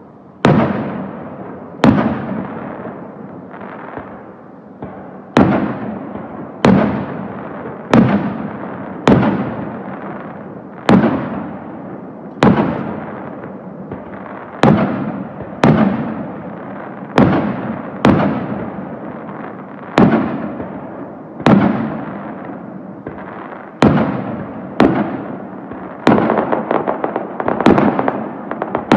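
Aerial firework shells bursting one after another, a sharp bang every second or two, each trailing off into a rolling echo. In the last few seconds a rapid crackling of many small reports piles in.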